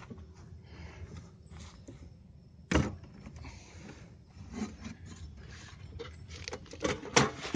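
Homemade wood-and-sheet-metal box trap with angle-iron frame being loaded into a car's trunk: handling rustle, one sharp loud knock about three seconds in, then a quick run of clattering knocks near the end as it is set down.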